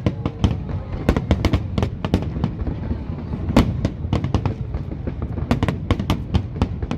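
Aerial fireworks going off in rapid, irregular succession, many sharp bangs and cracks a second over a steady low rumble of booms.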